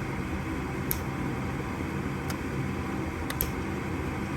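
Gas furnace's draft inducer fan running steadily during an ignition attempt, with a few sharp clicks. The igniter is not glowing, so the burner does not light; the technician judges the igniter faulty.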